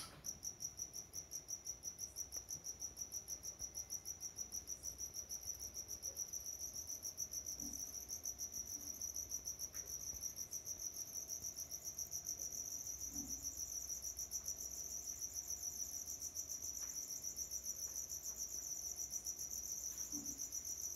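A cricket chirping steadily in a fast, even, high-pitched pulsing rhythm.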